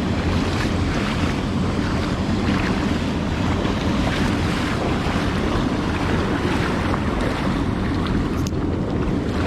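Steady rush of fast-flowing stream water, with wind buffeting the microphone.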